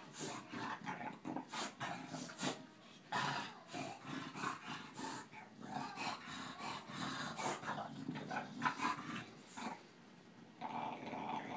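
A bulldog and a Boston terrier play-fighting: dog growls amid a rapid, uneven run of short clicks and scuffles.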